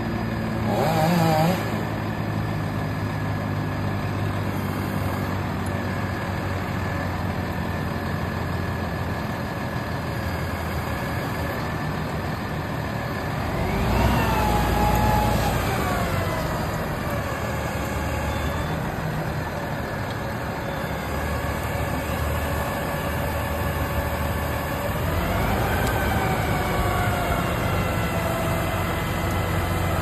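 Truck-mounted crane's engine running steadily. It revs up about halfway through and eases back, then revs up again near the end and holds the higher speed, as it would when powering the boom's hydraulics.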